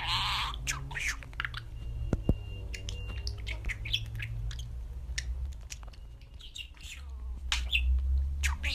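Budgerigar chattering in quick, short chirps and squeaks, over a steady low hum.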